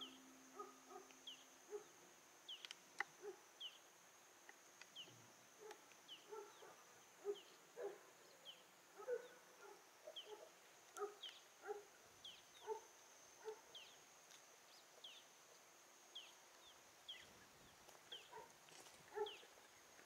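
Faint outdoor ambience: a steady high-pitched drone with short falling chirps about once a second and scattered faint low calls.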